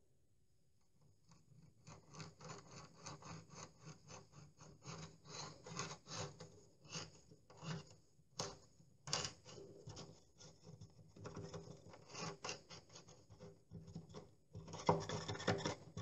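A screwdriver is twisted and scraped by hand into a plaster wall, grinding out a hole through the skim along a hairline crack. It makes faint, irregular scraping and rasping strokes that start about a second and a half in.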